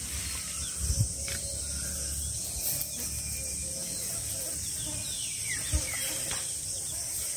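Steady high-pitched drone of an insect chorus, with faint rustling and a few light knocks as fingers work through soil, grass and dead leaves.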